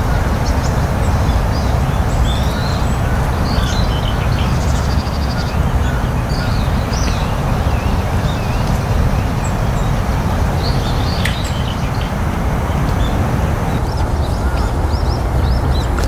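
Many short, high chirps from small birds, scattered throughout, over a steady low rushing background noise.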